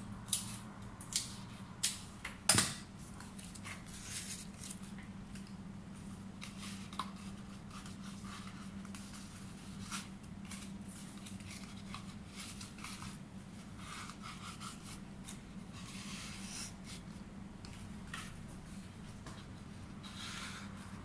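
Fresh leaves being handled and trimmed: a few sharp snips or clicks in the first three seconds, the loudest about two and a half seconds in, then soft rustling of leaves over a steady low hum.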